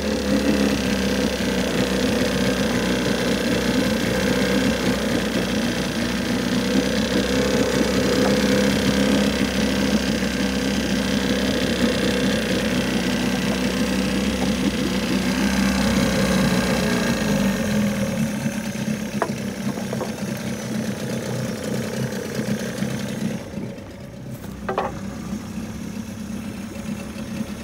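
Suzuki 30 hp outboard motor running at a steady idle after a cold start. About two-thirds of the way through, its note drops lower and the sound gets quieter, and a few light clicks come near the end.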